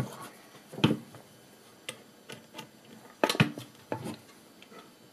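Scattered sharp clicks and clinks, with a quick cluster a little past the middle, as a steel guide rod is fitted through 3D-printed holders on a small wooden frame.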